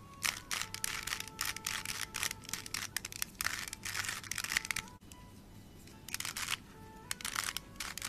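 Plastic 3x3 Rubik's cube being scrambled: its layers are twisted fast, giving quick runs of clicking and rattling. There is a pause in the middle, then a second run near the end. Faint background music plays under it.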